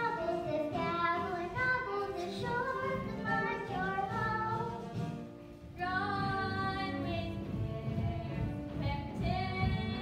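Children's chorus singing a musical-theater song over musical accompaniment, with a brief pause a little past halfway before the voices come back in strongly.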